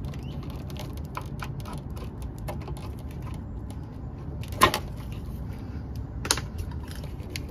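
Small plastic clicks and taps of a flathead screwdriver prying at the locking tab of a wiring-harness connector, with a louder snap a little past halfway and another about a second and a half later.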